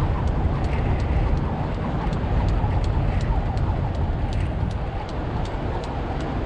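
A jump rope clicking against the ground with each turn, about three times a second, over a steady low rumble.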